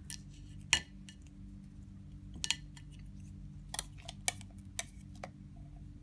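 A plastic fork clicking against a ceramic plate while picking up banana pieces: a series of sharp taps, the loudest just under a second in, over a low steady hum.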